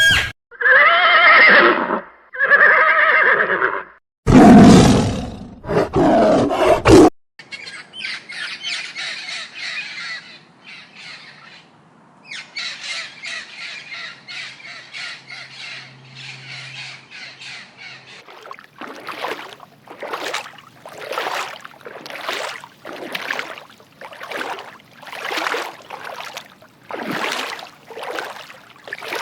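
A run of different animal calls one after another: two pitched calls, then loud rough calls, then a long fast chattering, then a steady series of calls repeating about once a second.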